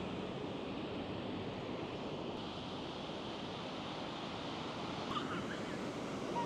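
Sea surf breaking and washing up on a sandy beach: a steady rush of waves, with a faint wavering high-pitched call near the end.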